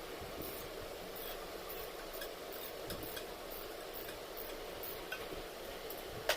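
Faint clicks and taps of hand work on an air-cooler fan as its blade is being taken off, with one sharp click near the end, over a steady background hiss.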